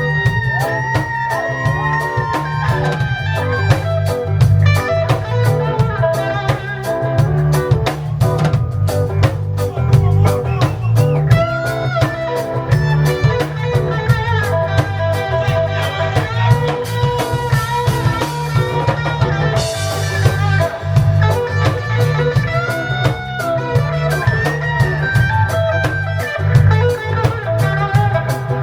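A live reggae band playing an instrumental passage, with guitar lines over a heavy, steady bass line and drums.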